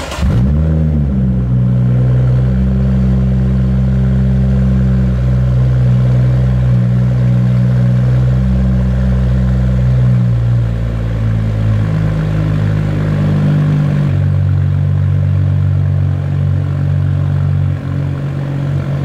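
BMW 435i's turbocharged 3.0-litre inline-six starting with a short flare and holding a raised cold-start idle that runs fast but heavy. The engine management is holding the revs up and retarding the ignition, which the owner takes to be an emissions strategy for heating the catalytic converter quickly. About ten seconds in the idle drops a step, and again a few seconds later.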